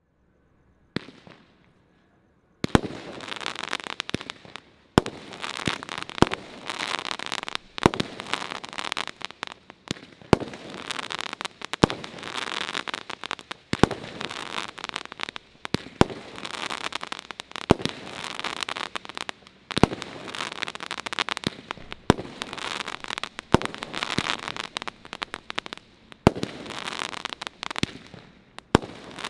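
Firework cake (Brothers Crimson Dynamo, a Category F2 battery of shot tubes) firing. From about three seconds in, a sharp launch shot comes every second or two, with dense, continuous crackling from the bursting stars.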